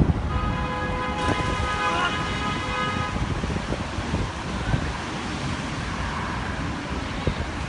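Strong wind buffeting the microphone over steady traffic noise. A steady pitched tone, like a vehicle horn, sounds for about three seconds near the start.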